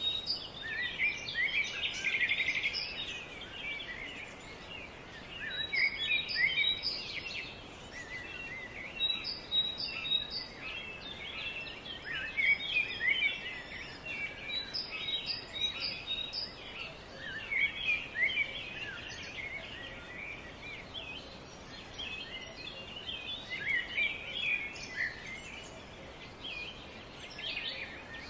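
A chorus of small birds chirping and twittering without a break: many short, quick calls overlapping, with now and then a run of a repeated high note.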